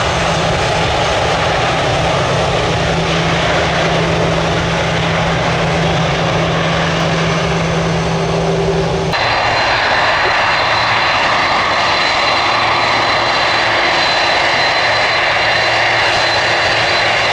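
Boeing 747-400 jet engines running as the four-engine airliner rolls on the ground, a loud steady jet sound. About nine seconds in the sound changes abruptly to a closer engine noise with a high steady whine.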